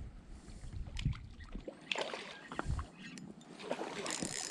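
River water splashing and sloshing, with scattered light knocks and clicks. The louder noisy splashes come about two seconds in and again near the end.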